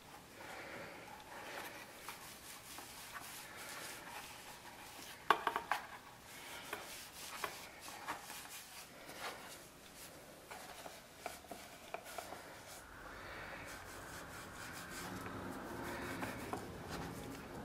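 Hands rubbing and handling a tooled leather holster while buffing finish onto it with a wool pad: soft rubbing with scattered light knocks and clicks, the sharpest knock about five seconds in. A faint steady hum comes in over the last few seconds.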